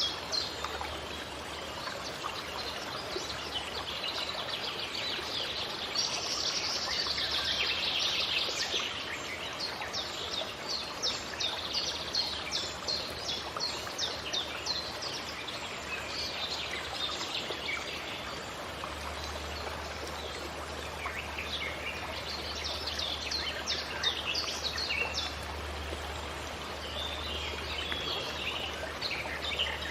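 Forest ambience: many small birds chirping and calling in quick runs of short notes over a steady rush of flowing water, like a stream. A faint low rumble joins about two-thirds of the way through.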